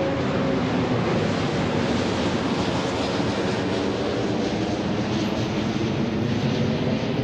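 Drone's motors and propellers running steadily in flight: a dense, even whir with several steady hum tones beneath it.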